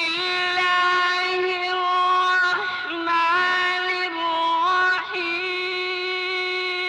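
A solo voice singing slow, long-held notes, gliding up and down between pitches.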